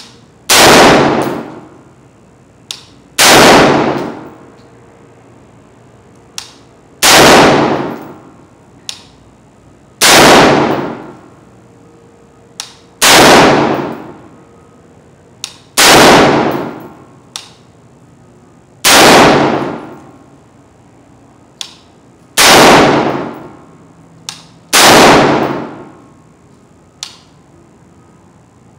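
Colt LE6920 AR-15 rifle firing single 5.56 mm shots at a slow, deliberate pace, nine shots about three seconds apart. Each report is followed by an echo that fades over about a second. Fainter single sharp cracks fall between the shots.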